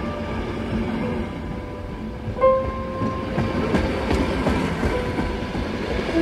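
A train running along the track, with the rumble and clatter of its wheels over the rails. The running noise grows louder and busier about three seconds in.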